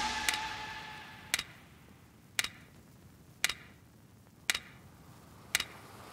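Music dies away with one held note fading out, then a sharp clock-like tick sounds about once a second, six times in all.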